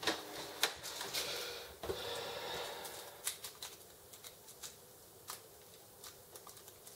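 Epson XP-605 inkjet printer's mechanism working through a cancelled print job: a soft whir over the first two seconds or so, then irregular light clicks.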